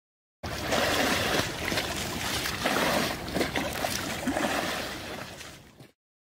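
Sea water washing and splashing, starting abruptly about half a second in and fading out near the end.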